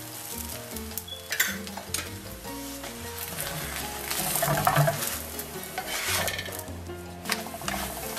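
Flour tortilla sizzling in an oiled skillet, with a spoon and then a spatula scraping and pressing it against the pan several times.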